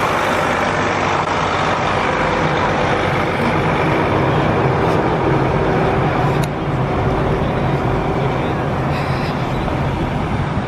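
Prevost tour coach's diesel engine running as the coach drives past close by and pulls away, a steady loud engine drone over road noise.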